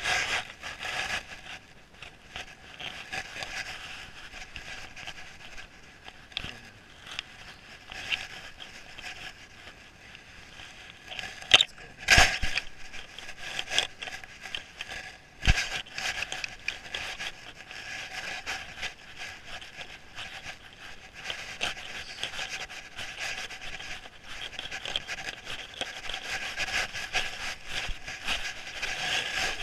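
Scraping and crackling of brush and riding tack as a mule walks through shrubs, with a few sharp knocks about twelve and fifteen seconds in.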